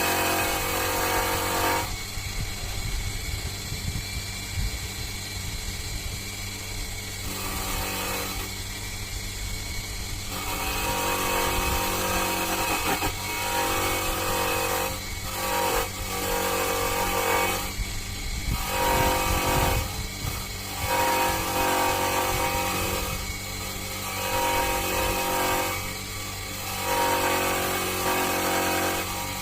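A power tool's motor whining in repeated runs of a second or two, starting and stopping, over a steady low hum.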